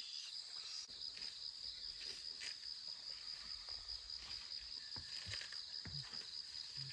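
Insects chirring in a steady, high-pitched, faintly pulsing drone, with a few faint ticks near the end.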